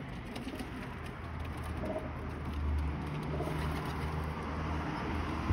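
Domestic pigeon cooing: a low, drawn-out coo that swells about two seconds in and carries on until near the end.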